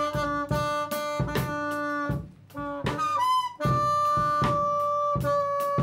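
Saxophone playing a phrase of short notes over drum-kit hits, sliding in pitch a little past the middle, then holding one long note.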